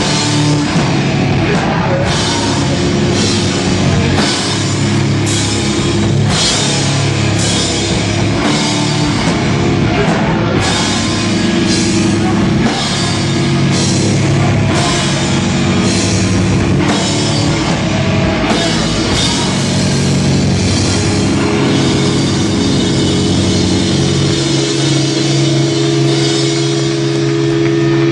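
Hardcore band playing live: heavy, distorted guitars, bass and a drum kit in a slow, pounding beat with a cymbal crash about once a second. Near the end the beat falls away and a single held note rings on.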